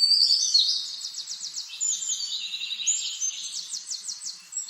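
Songbirds singing: high whistled notes and quick trills overlapping, loudest in the first second.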